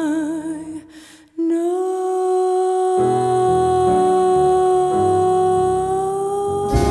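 Soundtrack music: a wavering held note fades out about a second in, then a long steady held note begins. About three seconds in, a low bass line joins it and changes pitch every second or so.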